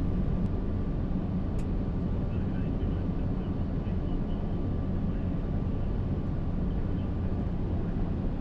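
Steady low rumble of airflow and engine noise inside an Airbus A380's flight deck on final approach, with a faint steady high tone that fades out near the end.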